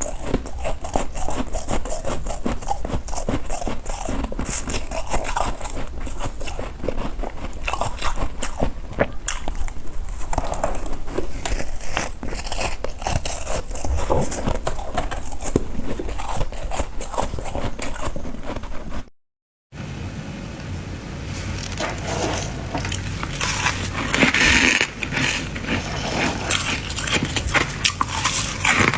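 Thick, crunchy freezer frost being scraped off: a dense, uneven run of crackling, crunching scrapes, broken by a moment of silence about two-thirds of the way through.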